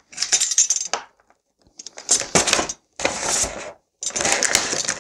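Clear plastic packaging crinkling and rustling in several short bursts, with a brief silence about a second in.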